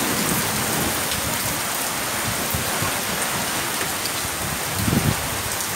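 Heavy rain pouring steadily, with a brief low rumble about five seconds in.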